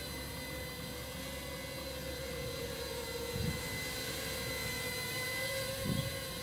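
Ladybird micro quadcopter's small motors and propellers whining steadily in flight, the pitch wavering slightly. Two brief low thumps, one midway and one near the end.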